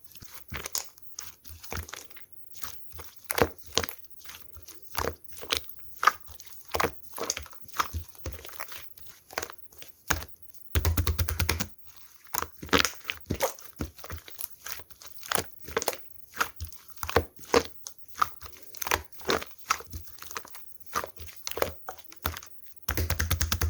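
Slime being squished and pressed by hand, giving a run of crisp crackling pops and clicks, several a second. Two short rapid flurries with a low thump come about eleven seconds in and near the end.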